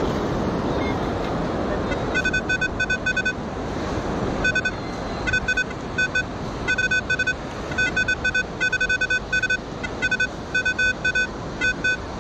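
Metal detector sounding a target tone: short, high beeps repeated in quick runs, signalling metal under the sand. Beneath the beeps is a steady rush of surf and wind noise.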